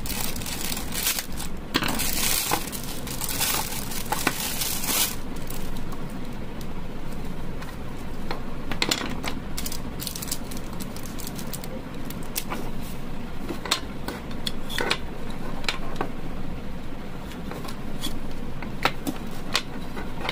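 Plastic packaging bag crinkling for the first five seconds as it is opened. After that come scattered sharp clicks and taps as the plastic switch-box parts are handled and set down on a wooden table.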